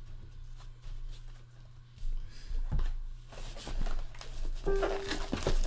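Trading cards being handled and sorted by hand: rustling, sliding and clicking card stock, getting busier about halfway through, over a steady low electrical hum. A short steady tone sounds near the end.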